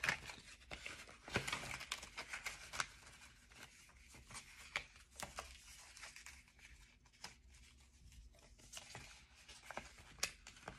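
Paper banknotes and a paper cash envelope rustling and crinkling, with scattered sharp clicks, as the bills are worked into the envelope with some struggle. It is busiest in the first few seconds, sparser in the middle, with a few more crackles near the end.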